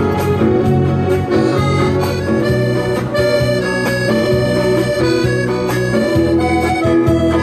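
Instrumental passage of a song with no singing: a melody of held notes over a steady bass accompaniment.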